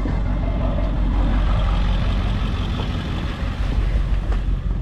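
Pickup truck driving, a steady engine and road rumble heard from inside the cab.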